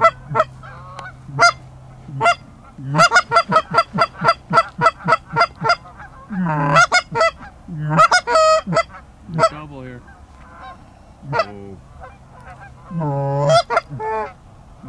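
Canada goose honks and clucks, loud and in irregular groups, with a quick run of about five honks a second from about three seconds in.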